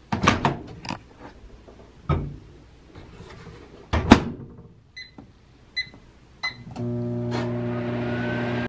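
Microwave oven being worked: clunks and knocks at the door, the loudest about four seconds in, then three keypad beeps, and the oven starts up with a steady hum about seven seconds in.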